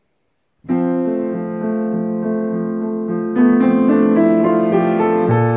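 Silence for about half a second, then a piano begins the opening bars of a song: sustained chords and notes that move step by step, growing louder with higher notes from about three and a half seconds in.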